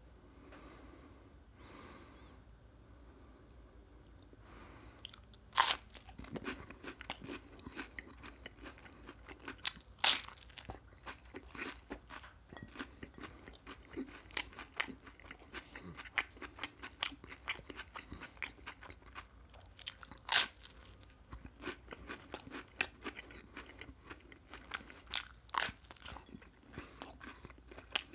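Biting and chewing into an open-faced sandwich on toasted bread topped with cucumber slices: loud crunches of the toast at irregular intervals, with many smaller crunching clicks of chewing between. The first loud bite comes about five seconds in.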